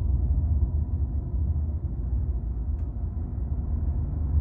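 Steady low rumble of a taxi driving, heard from inside its cabin: engine and road noise.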